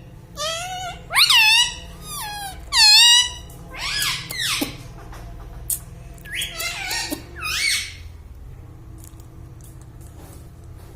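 Pet parrot calling: a string of shrill squawks, each sweeping up and down in pitch, over the first eight seconds or so. After that only a few faint clicks are heard.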